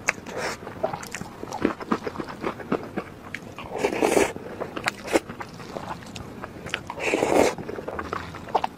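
Close-miked eating sounds: wet chewing and mouth clicks as soft braised pork and soupy rice are eaten from a wooden spoon, with louder slurping bursts about four seconds in and again around seven seconds.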